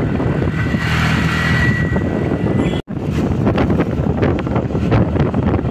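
Riding noise on a moving motorbike: wind buffeting the microphone over the engine and road noise. The sound breaks off for an instant a little under three seconds in.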